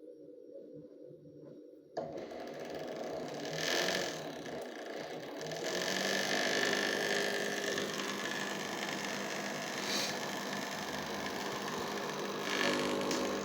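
Microwave oven switched on about two seconds in, then running with a steady hum and fan noise that swells louder briefly a few times.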